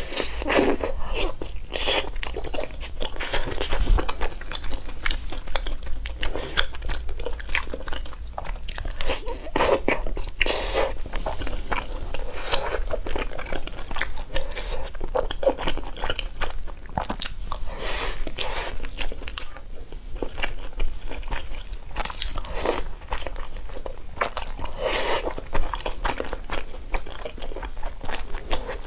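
Close-miked eating: a person biting and chewing thick, gelatinous strips of food in chili sauce, plus a mouthful of rice, with many irregular sharp bites and wet chewing noises.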